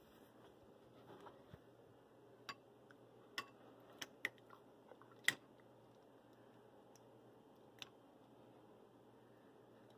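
Short, sharp taps and knocks, about six of them, the loudest about five seconds in, as an upturned can of mini ravioli is knocked and shaken to empty it into a bowl.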